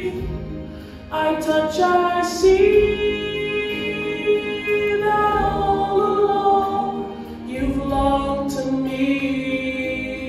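A young man singing a solo song, holding long notes that glide between pitches. He breaks briefly for breath about a second in and again about seven and a half seconds in.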